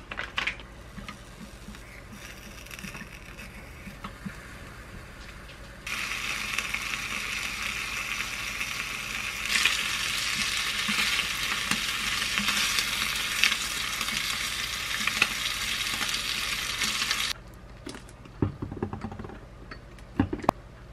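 Slices of duck meat sizzling in a small frying pan. The sizzle starts about six seconds in, grows louder a few seconds later and cuts off sharply near the end. After that a metal spoon clinks and scrapes, stirring a sauce in a small glass bowl.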